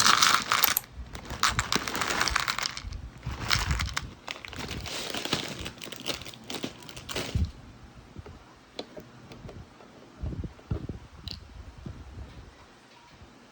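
Rustling and crinkling handling noise for about seven seconds, then quieter scattered knocks and taps.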